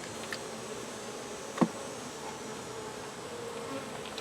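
Honey bees buzzing around an open hive in a steady hum, with a single sharp knock about a second and a half in.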